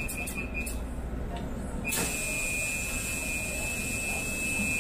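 LRT Line 1 light-rail train with a steady low rumble. A steady high-pitched tone with a hiss above it comes in suddenly about two seconds in and holds.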